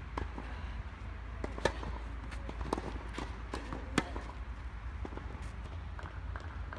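Tennis rally on a clay court: rackets striking the ball with sharp pops, the loudest as the near player hits a forehand about four seconds in, with softer ball bounces and shoe scuffs on the clay between.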